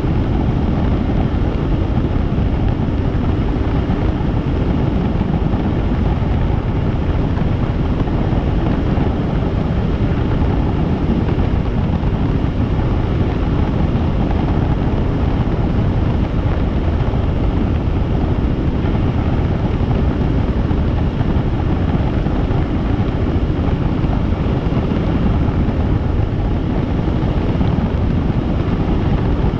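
Helicopter in flight, heard from aboard: a steady, unbroken rumble of rotor and engine with wind noise on the microphone.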